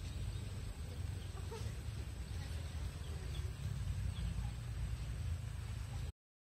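Birds chirping faintly in short, high notes over a steady low rumble; everything cuts off suddenly about six seconds in.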